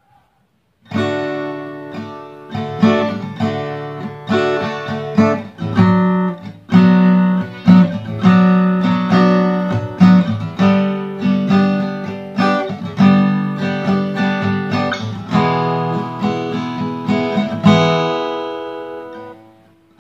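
Cort AD810 OP acoustic guitar on its original factory strings, strummed through a series of chords starting about a second in. The last chord rings on and fades away near the end.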